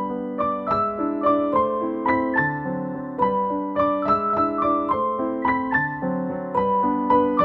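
Background piano music: a gentle melody of evenly paced single notes, about three a second, over held lower chords.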